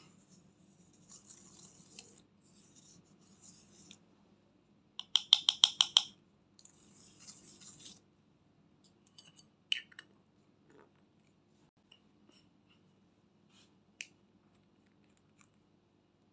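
Makeup brush scraping and crumbling pressed glitter eyeshadow out of its plastic pan, a dry gritty scratching that comes in two stretches. Between them comes a quick run of about eight sharp taps, the loudest sound, and later a few scattered light clicks.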